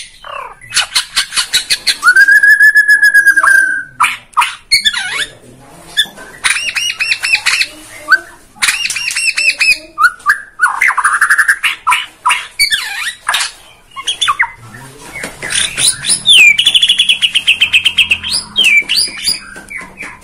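White-rumped shama (Bornean murai batu) singing hard: a loud, varied run of rattles, rapid trills and whistles. It holds one steady whistle for about two seconds shortly after the start, and a long buzzy trill late on.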